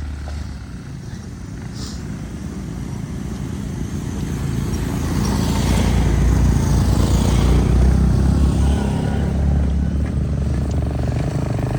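Motorcycle engine running steadily, growing louder a few seconds in.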